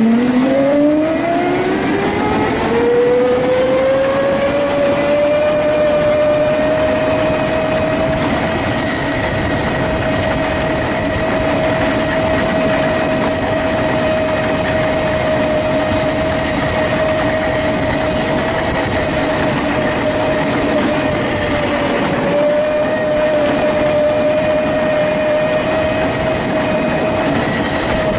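Kunray 3000-watt 72-volt brushless go-kart motor whining as the kart pulls away from a standstill in its high setting carrying two riders, about 300 pounds. The whine rises in pitch over the first five seconds, then holds steady at a top speed of about 22 mph, with a brief dip about 22 seconds in, over a steady rush of tyre and road noise.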